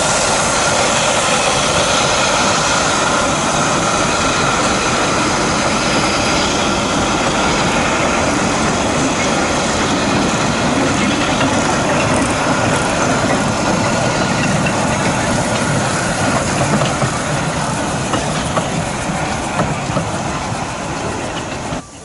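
Narrow-gauge steam locomotive running: a steady, dense rush of noise that eases slightly toward the end, then cuts off suddenly.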